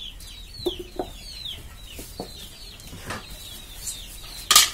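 Chicks peeping over and over in short falling chirps, with a few light knocks about a second and two seconds in. Near the end comes a loud, brief rustle of a plastic bag.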